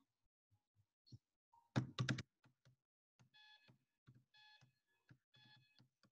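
Faint electronic beeps from a workout interval timer: a few sharp knocks, then from about three seconds in a run of short beeps of one pitch, a little under a second apart, like a timer counting down.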